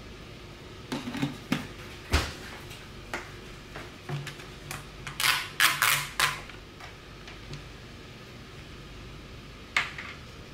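Kitchen containers being handled and set down on a wooden counter: a few sharp knocks and clicks early, a quick run of noisy scrapes around the middle, and one click near the end.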